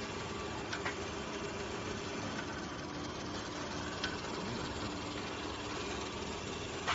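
Pipe straightening machine running steadily as a hollow metal pipe is drawn through its rows of rollers, with a steady hum and a few short clicks.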